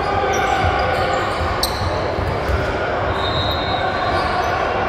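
Basketball game in a gym: a ball bouncing on the hardwood court, with voices echoing in the hall.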